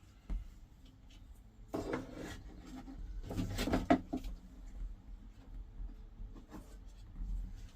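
Heater core and plastic heater-box parts being worked together by hand, scraping and clunking in two short bouts about two seconds and three and a half seconds in, with a few small knocks between.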